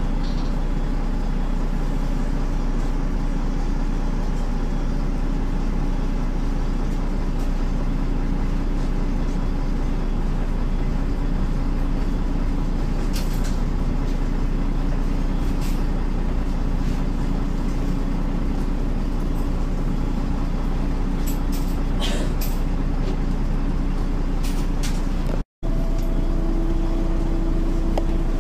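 MAN NL202 city bus's D08 diesel engine running steadily, heard from inside the bus, with a few light clicks and rattles. A short break near the end cuts to a new recording in which the engine note sits higher.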